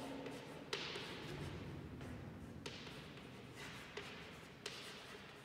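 Chalk writing on a chalkboard: faint scraping with about five sharp taps as the chalk strikes the board.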